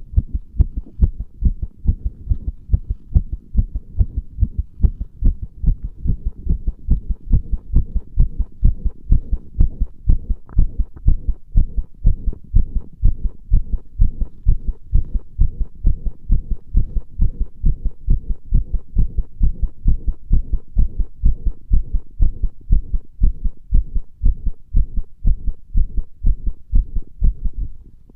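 A human heartbeat recorded close against the chest under pressure: steady, regular low thumps, about one and a half a second.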